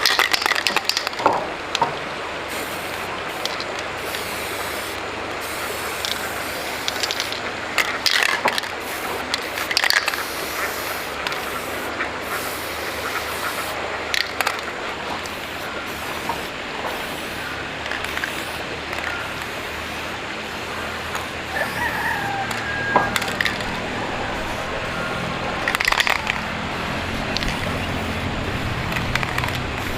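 Electric arc welding on an iron frame: a steady crackling hiss, with a few sharp metallic knocks along the way.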